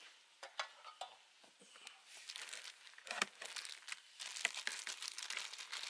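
Plastic food wrapping crinkling and crackling as it is handled and slit open with a knife on a plastic cutting board. The crackles are sparse at first and come thicker and louder from about two seconds in.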